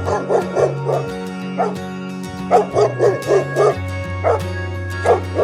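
A small dog yipping in quick runs of short, high barks, about five a second, over background music with a steady bass line.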